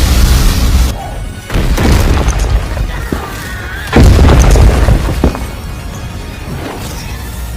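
Fight sound effects: heavy booms and crashing impacts over dramatic music, the loudest hit about four seconds in, then the music carries on more quietly.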